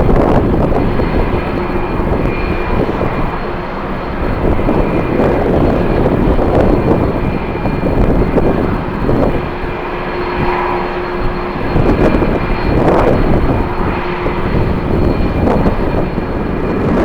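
Jet airliner engines running, heard through strong, gusting wind buffeting the microphone. A faint steady engine whine sits under the uneven, surging wind noise.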